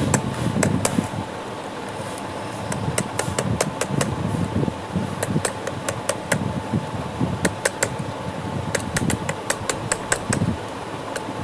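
Screwdriver tip prying and scraping at a small aluminium lock washer on a gearbox shaft nut, bending it straight: many irregular sharp metal clicks and taps, over a steady background hum.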